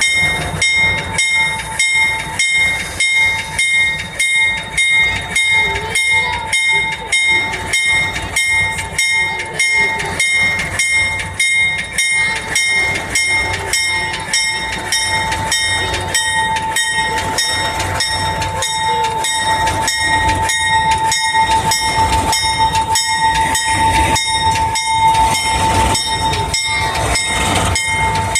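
Two Alco RS-32 diesel locomotives running as they pull a passenger train away, their rumble growing and steadying in the second half. Over it a bell rings evenly about twice a second throughout.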